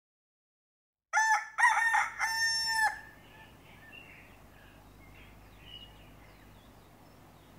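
Rooster crowing once, a cock-a-doodle-doo in three parts ending on a long held note, starting about a second in. After it come a faint steady background and a few faint high chirps.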